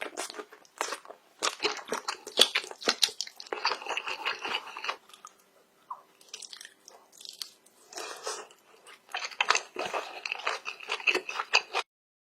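A person biting and chewing shrimp, with many sharp crunches in quick runs. The crunching eases for a few seconds in the middle, picks up again, and cuts off abruptly near the end.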